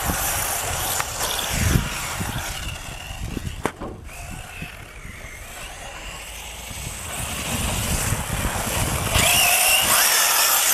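Electric brushless RC car driving hard on sand, its motor whine rising and falling in pitch as it speeds up and slows. About nine seconds in it passes close with a loud rush of spraying sand.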